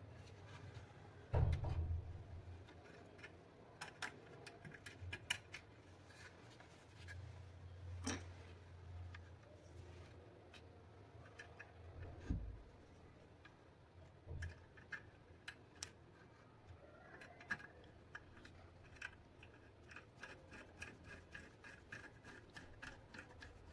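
Faint clicks and scrapes of fingers working a wire into the plastic handle of an electric iron and a screwdriver turning a small terminal screw to tighten it, with a knock about a second and a half in and a run of quick small ticks near the end.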